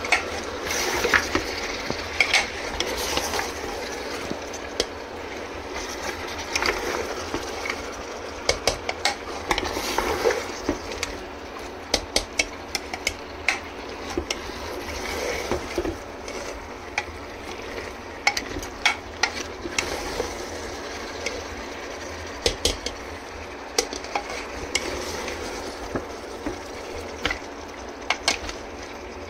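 Mutton frying in a pot with a steady sizzle while a spoon stirs it, scraping and clicking against the pot again and again.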